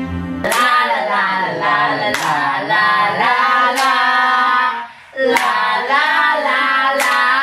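Soft background music cuts off about half a second in, giving way to a group of friends singing together and clapping, with a sharp clap about every second and a half.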